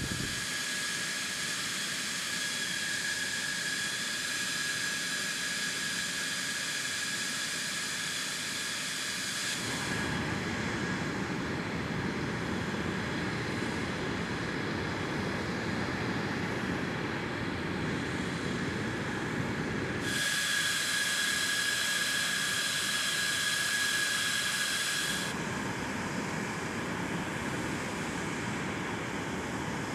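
An F-16's jet engine idling with a steady high whine over a rushing hiss, as de-icing trucks spray it. The whine drops out abruptly about a third of the way in, comes back for a few seconds after the two-thirds mark, then drops out again, leaving a rougher, lower rushing noise.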